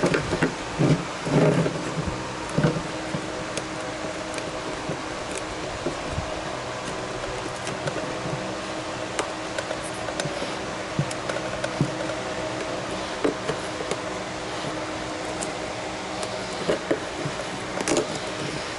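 Small scattered clicks and scrapes of a pick tool prying along the glued seam of a baked headlight assembly, the heat-softened sealant cracking as the lens is worked loose from the housing. A steady fan-like hum runs underneath.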